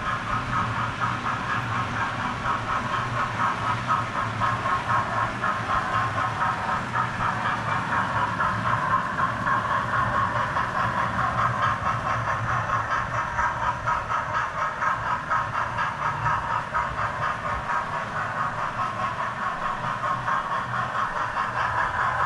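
Hornby OO-gauge model trains running around a layout: a steady whirr of small electric motors with a fast, fluttering clatter of wheels on track, over a low steady hum.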